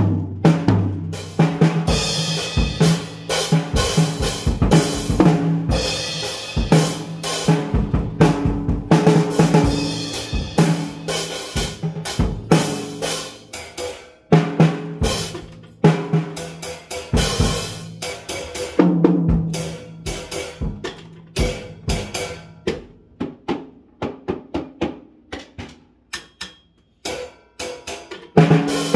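Acoustic drum kit played loosely by hand: snare, bass drum and cymbals in busy runs of strokes, with the drums ringing. About two thirds of the way through the playing drops to quieter, sparser strokes before picking up again near the end.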